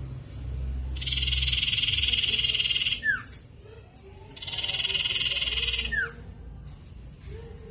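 Sirtu (common iora) singing: two long rapid trills, each about two seconds and ending in a short downward-sliding whistle, a pause between them. It is a lure call played to make other sirtu answer.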